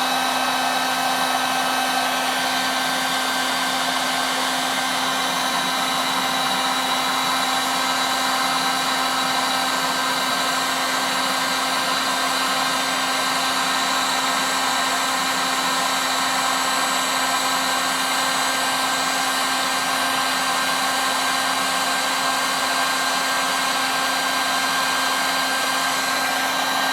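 Full-size electric heat gun running steadily, a constant fan whir with a fixed hum, blowing hot air to cure crazy glue.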